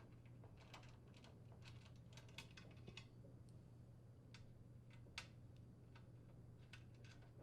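Faint, irregular small metallic clicks of a 2.5 mm Allen wrench working the screws that hold a range vent hood's glass canopy, some in quick clusters, over a low steady hum.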